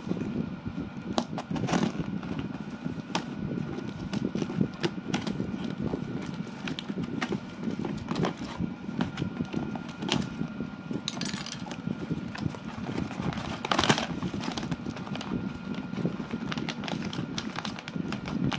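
Parcel being unpacked by hand: plastic wrapping and a cardboard carton rustling and crackling, with many scattered clicks and taps. There are louder crinkling bursts about eleven and fourteen seconds in, over a steady low rumble.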